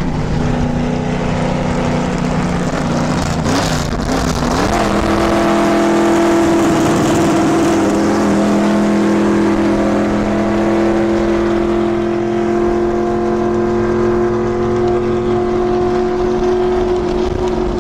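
NASCAR stock car's V8 engine running hard at speed. Its note wavers and climbs about four seconds in, then holds at a steady high pitch, rising slightly.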